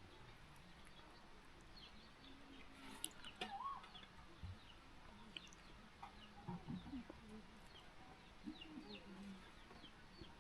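Faint clucking of chickens, mixed with scattered chirps of small birds.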